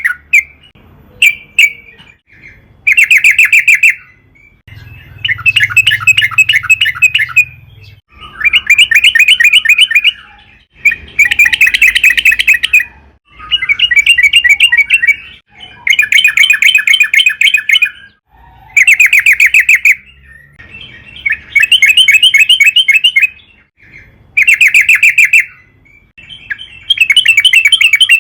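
Yellow-vented bulbul (trucukan) singing loudly. It gives about a dozen rapid, bubbling phrases of one to two and a half seconds each, one after another with short pauses between them.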